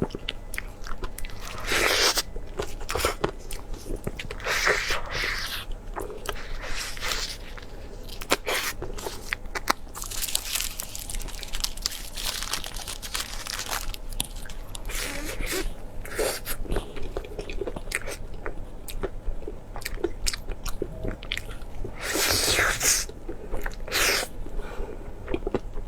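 Close-miked eating: a person biting, crunching and chewing food, with many short wet clicks and irregular bursts of crunching.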